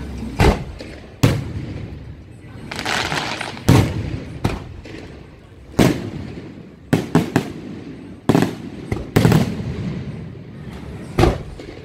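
Aerial fireworks shells bursting overhead: about a dozen sharp bangs at uneven intervals, with a quick run of four bangs about seven seconds in and a rush of noise between the bursts.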